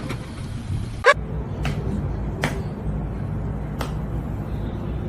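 Four sharp clicks or taps, the first and loudest about a second in, over a steady low hum.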